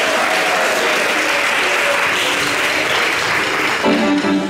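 Audience applauding steadily, with a voice rising over the clapping near the end.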